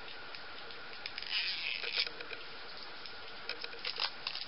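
Hands handling small cosmetic packaging: a scratchy rustle of wrapper or packaging about a second and a half in, then a few small clicks and taps near the end, over a steady low hiss.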